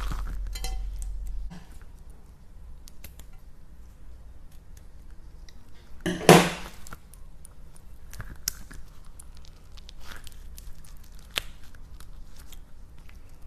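Slime stress ball being cut, giving scattered small clicks and crackles, with one loud burst about six seconds in. A low hum stops about a second and a half in.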